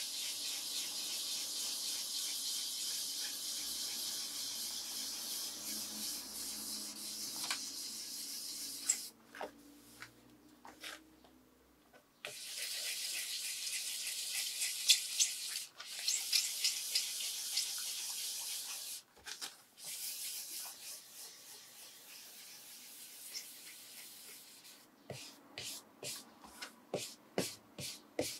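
Waterproof sandpaper on a sanding block, wet with soapy water, rubbing back and forth over a lacquered guitar body: a steady gritty hiss that pauses for a few seconds about a third of the way in, then resumes. Near the end it breaks into separate strokes, about three a second. This is wet sanding to level an orange-peel lacquer finish before buffing.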